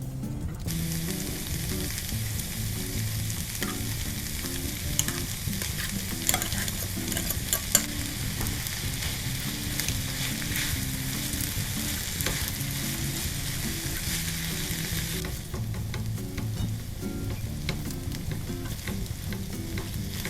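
Food sizzling in hot vegetable oil in a pan. A utensil clicks against the pan a few times in the middle as the food is stirred. The sizzle starts about a second in and stops suddenly about three-quarters of the way through, under quiet background music.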